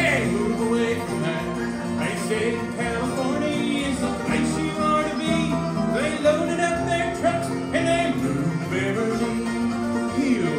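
Live bluegrass music from a five-string banjo and an acoustic guitar playing together, with a voice singing over them.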